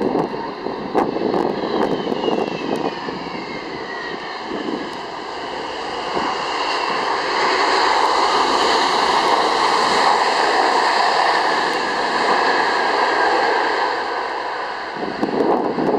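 Jet airliner's engines passing close by on landing: a high whine falls in pitch over the first few seconds, then a broad jet roar swells to its loudest in the middle and eases off. Strong wind buffets the microphone.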